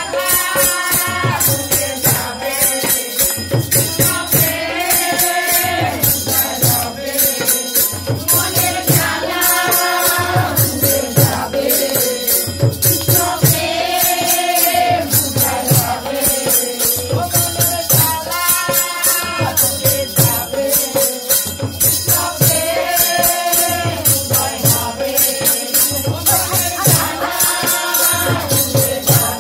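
Hindu kirtan: a group singing a repeated chant of Hari's name, the sung phrase returning about every four seconds, over fast jingling cymbals and a steady hand-drum beat.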